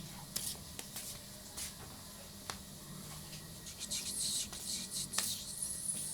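Light scratching and rustling with scattered small clicks, in bouts that grow busier about four seconds in.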